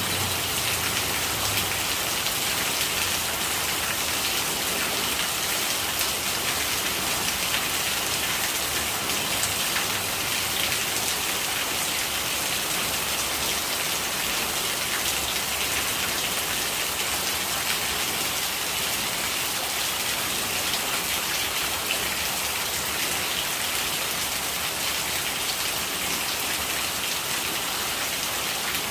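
Steady rainfall: an even, unbroken hiss of drops with many fine ticks of individual drops striking surfaces.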